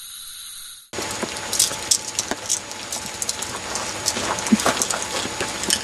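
A short steady hiss in the first second, then irregular rustling and clicking of handling as a person is worked on while lying on a blanket over wood mulch.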